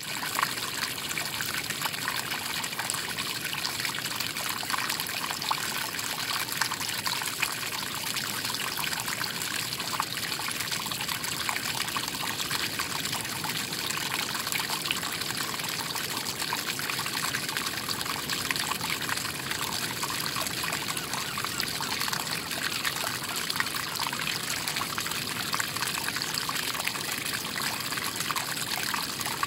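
A small stream of water trickling down a rock face and over pebbles: a steady, light splashing trickle, mostly high-pitched with fine crackles.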